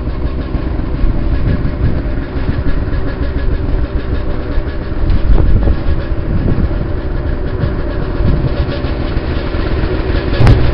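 Snowmobile engine running at steady speed while riding, with a continuous low rumble and rattling clatter from the sled.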